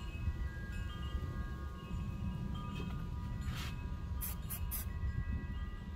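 Chimes ringing with several overlapping steady tones over a low background rumble, with a few short hissing rustles a little past halfway.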